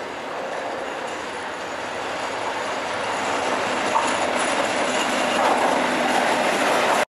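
Train headed by a Class 56 diesel and the steam locomotive Tornado running along the track, a steady rumble and rail noise growing louder as it draws nearer, then cutting off abruptly near the end.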